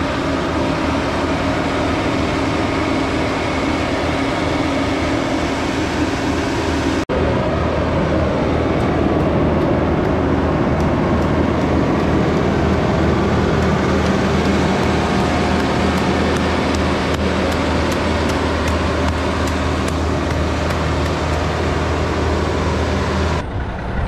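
LeeBoy 8500 asphalt paver's diesel engine running steadily under load, a continuous loud drone. It breaks for an instant about seven seconds in. After that, light ticking clatter from the machinery and asphalt sits over the drone.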